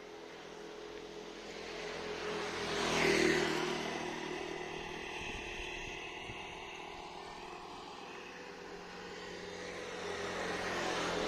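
Vehicles passing by: one swells to a peak about three seconds in and fades away, and a second builds up near the end, over a steady faint hum.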